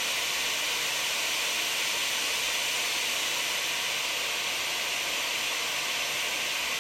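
Lectrofan Micro sound machine playing its fourth white noise setting: a steady, even hiss, brightest in the upper-middle range. It is the setting meant to break through to a very upset baby.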